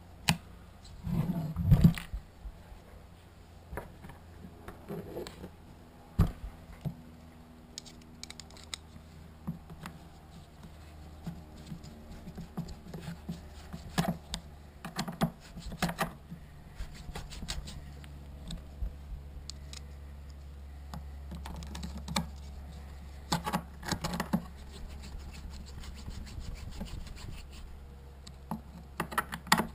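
Irregular clicks, taps and light rattles of a hand tool and screws against a Stihl 026 chainsaw's plastic housing as the handlebar tube is screwed on.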